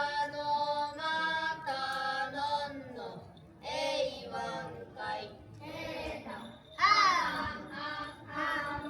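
Voices singing a slow song, with long held notes for the first few seconds and then shorter, wavering phrases.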